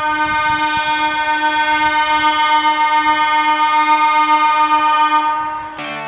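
Background music: one long held keyboard chord with a pulsing low note, breaking off into short notes near the end.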